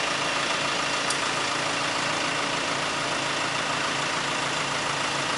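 Telehandler's diesel engine running steadily while its boom raises a load.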